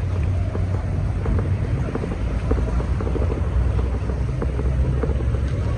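Heavy rain with wind buffeting the microphone, a steady low rumble with many small scattered ticks of raindrops.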